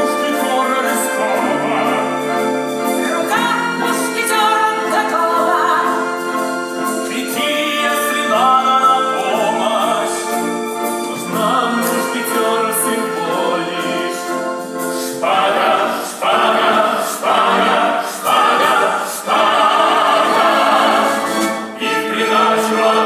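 A song with singing voices over accompaniment. In the second half the music moves in strong, even chords about once a second.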